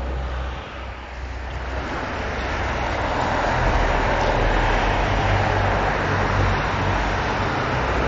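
Outdoor rushing noise with a low rumble underneath, swelling over the first few seconds and then holding steady.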